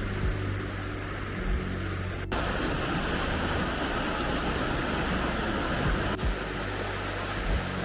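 Steady hiss of heavy rain, with soft background music underneath. About two seconds in, an abrupt cut gives way to a brighter rushing noise.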